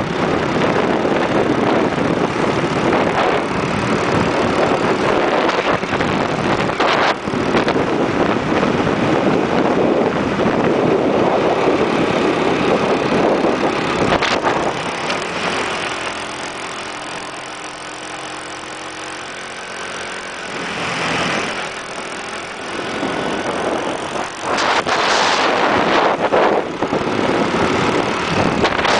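Wind rushing over the microphone on a moving motorbike, with the bike's small engine running underneath. About sixteen seconds in, the wind noise eases for several seconds and the engine's steady note comes through, then the wind rises again.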